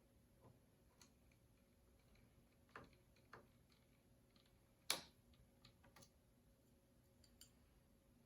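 Faint, scattered small clicks and ticks of a small screwdriver turning out the screws at the top of a laptop screen, about eight in all, with one sharper click about five seconds in.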